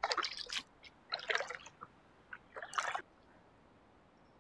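Paddle strokes splashing in lake water, three in a row a little over a second apart.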